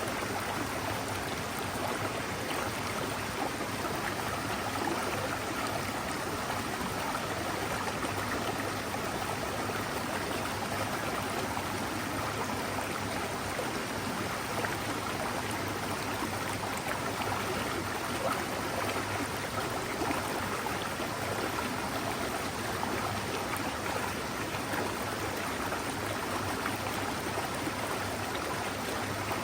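Mountain stream water running and splashing over rocks, a steady, even rush with no breaks.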